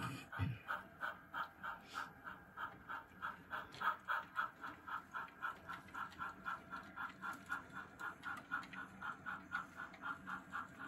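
Model steam locomotive's sound system chuffing steadily, about three to four chuffs a second, as it pulls a train slowly along the track, over a faint low hum.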